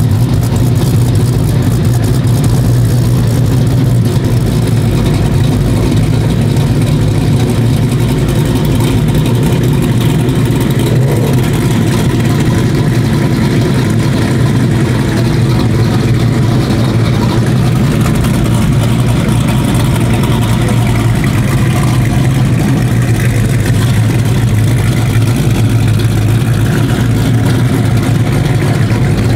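A 1000 hp supercharged Hellephant Hemi V8 in a carbon-fibre Dodge Charger, running at a loud, steady idle with no clear revving.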